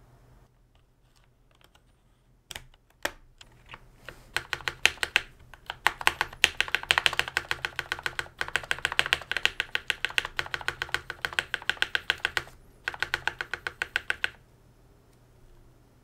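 Fast typing on a Mountain Everest Max mechanical keyboard fitted with lubed Cherry MX Red switches: a few scattered key clicks, then a dense, rapid run of key strokes with a short break near the end before it stops.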